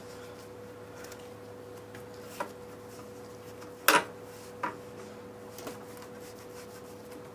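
A few short, scattered clicks and knocks from hand-cleaning the dirty lower parts of a moped, the loudest about four seconds in, over a steady low hum.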